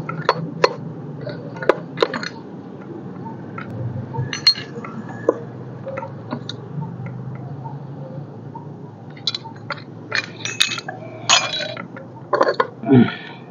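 Light metallic clinks and taps of steel gears and shafts being handled and seated into an Ape auto-rickshaw gearbox casing. Scattered single clinks, coming closer together near the end.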